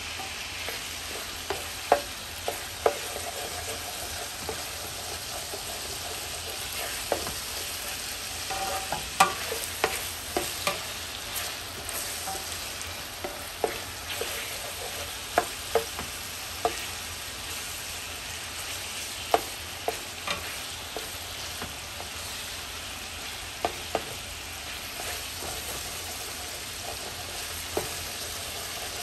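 Cut-up chicken thighs frying in oil in a pot, a steady sizzle as they brown, with sharp knocks every so often as a utensil stirs and turns the chicken against the pot.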